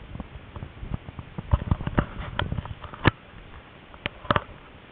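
Irregular sharp clicks and knocks over a steady low running noise inside a moving tram, thickest in the middle, with the loudest knock about three seconds in and two more near the end.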